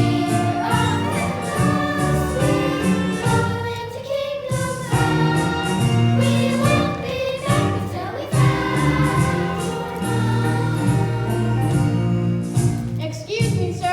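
A chorus of young performers singing a musical-theatre number over instrumental accompaniment.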